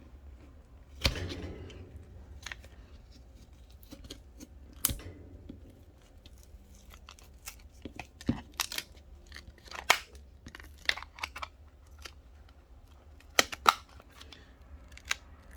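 Plastic pry tool scraping and levering around the edges of a Samsung Galaxy A51's plastic back cover, with sharp, irregular clicks and crackles as the cover is pried loose.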